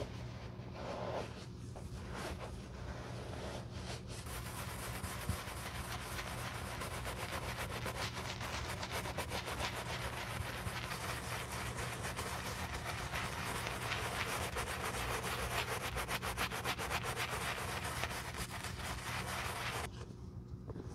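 A cloth towel rubs briefly over leather boots, then a hand brush scrubs soapy foam into black leather ankle boots in fast, continuous scratchy strokes.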